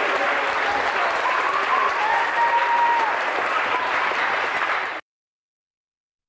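Audience applauding, with a few faint held musical notes under the clapping; the sound cuts off abruptly to silence about five seconds in.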